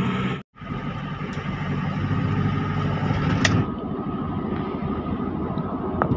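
Pickup truck on the move: steady engine, tyre and wind noise, heard from the open cargo bed, after a brief dropout about half a second in.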